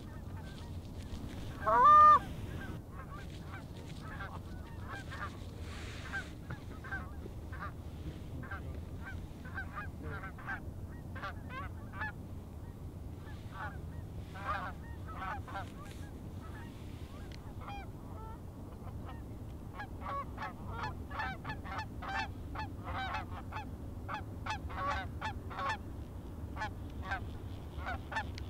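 A flock of Canada geese honking in flight overhead, many short calls overlapping and growing busier toward the end. One much louder single honk comes about two seconds in.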